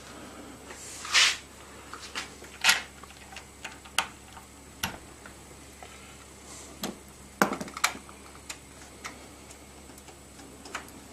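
Irregular clicks, knocks and short scrapes of an HDMI cable being plugged in and clamped into a test rig by hand.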